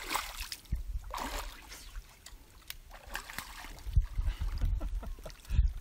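A small hooked barramundi splashing at the water's surface as it is reeled in.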